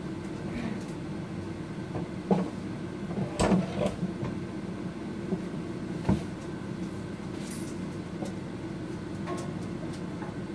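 Hand tools being set down and picked up off to the side of a workbench: a sharp knock about two seconds in, a short clatter a second later and another knock about six seconds in, over a steady room hum.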